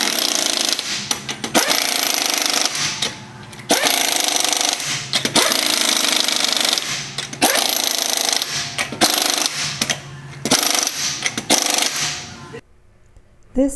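Half-inch-drive impact gun hammering lug nuts tight on a car's front wheel, in a series of bursts about a second long each with short pauses between, stopping near the end.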